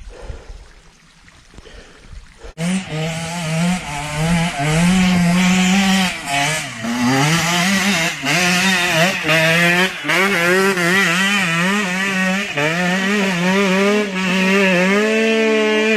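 Off-road motorcycle engine, which comes in suddenly about two and a half seconds in. It runs loud and revs up and down repeatedly between two engine speeds.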